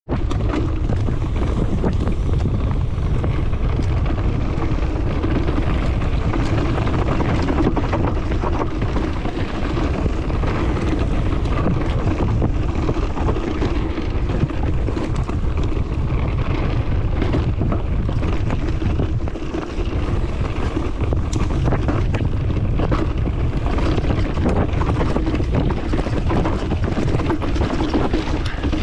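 Steady rumbling noise of a moving vehicle with wind buffeting the microphone, scattered with small clicks and knocks.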